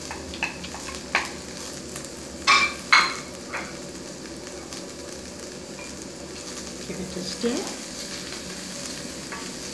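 Onions, garlic and green chilies frying in oil in a stainless steel pot, a steady sizzle. Chili powder is knocked off a plate with a wooden spoon, giving several sharp taps in the first few seconds, the loudest two about two and a half and three seconds in; near the end the wooden spoon stirs the pot.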